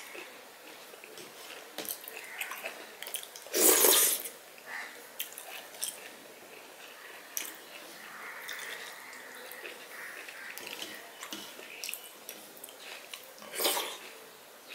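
Close-miked wet eating sounds: fingers squishing and mixing rice with dal on a steel plate, with small clicks and mouth sounds throughout. Two louder wet sounds stand out, about four seconds in and again near the end.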